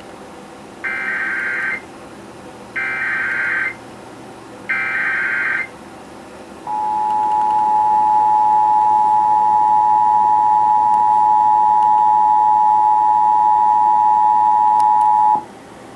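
Emergency Alert System tones on a radio broadcast: three short bursts of SAME digital header data, each about a second long, then the two-tone attention signal, a steady chord held for about nine seconds that cuts off suddenly. Together they mark the activation of an Amber Alert.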